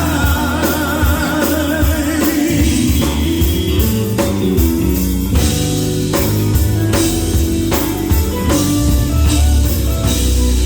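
Live gospel band music: drum kit, bass and electric guitar playing a steady beat, with a voice singing with vibrato over it for the first couple of seconds.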